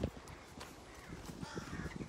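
A crow cawing once near the end, a short harsh call, over wind buffeting the microphone.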